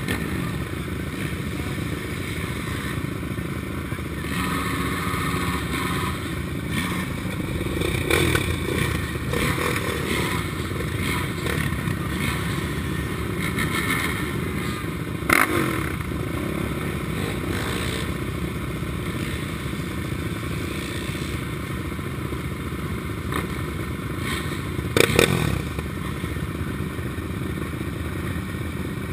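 Race quad engines idling together, including a Suzuki LTR 450's single-cylinder four-stroke, as the quads wait to start. A sharp knock comes about halfway through, and a short cluster of louder knocks comes near the end.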